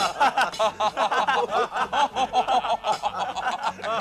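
Several men laughing loudly together, in quick repeated bursts of laughter that overlap one another.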